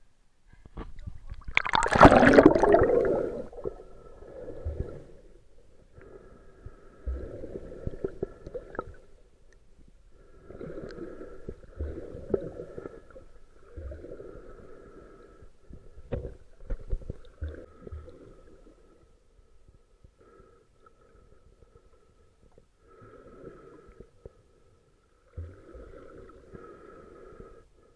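A camera plunging into seawater with a loud splash, then water noise heard from underwater, dull and low, in separate bursts every two to three seconds.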